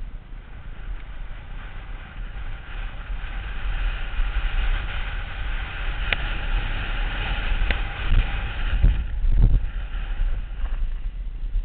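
Wind rumbling on a helmet camera's microphone on a downhill mountain bike, with the tyres running over the loose dirt and gravel track and the bike rattling. Two sharp knocks come about six and eight seconds in, and two heavier thumps shortly after.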